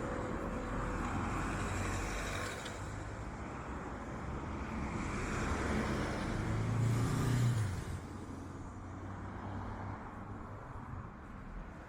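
Road traffic on a city street: a motor vehicle passes close by, its engine hum building to a peak about two-thirds of the way through and then dropping away, over a steady wash of traffic noise.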